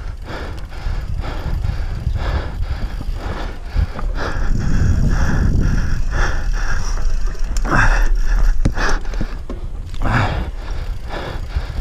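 Mountain bike descending a rough dirt trail, its frame and chain rattling and knocking over roots and bumps, with tyres scrabbling on the dirt. Wind rumbles steadily on the microphone. The clatter grows louder and busier from about four seconds in to near nine.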